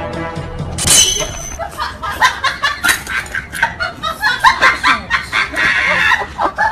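A sudden noise about a second in, then human laughter in many short repeated bursts of chuckling and snickering.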